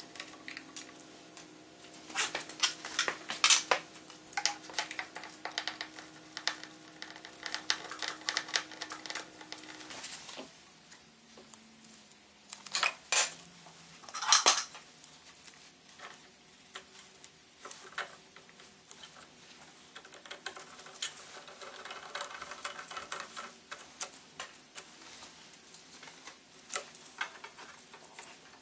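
Small metal parts and hand tools clinking and clattering while hose clamps are fitted on a rubber fuel hose at a fuel regulator's brass fitting. The clicks come irregularly, with louder bunches a couple of seconds in and again around the middle.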